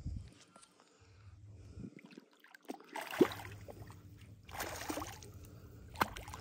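Hooked crappie splashing at the water's surface beside the boat, in several bursts: about three seconds in, again around five seconds, and near the end.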